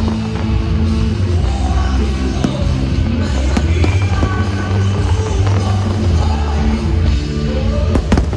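Pyromusical soundtrack with a heavy bass line and vocals, over which fireworks go off in several sharp bangs, with a cluster of reports near the end.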